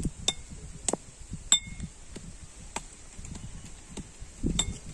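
Metal cookware clinking: about five sharp knocks spread over a few seconds, several ringing briefly.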